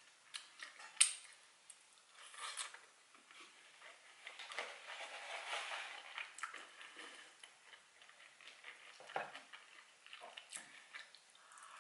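Metal fork clinking and scraping on a plate of fries, with one sharp clink about a second in, and close-miked chewing between the forkfuls.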